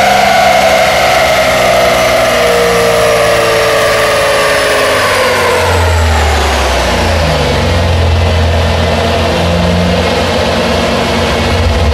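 BMW E92 M3's V8 engine on a chassis dyno, its revs falling steadily over about six seconds after a full-throttle pull, then settling into a steady low idle.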